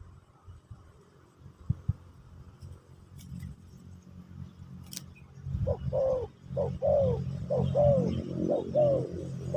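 Spotted dove (terkukur) cooing: a run of short, arching notes, about two a second, starting a little past halfway. Two sharp clicks come about two seconds in.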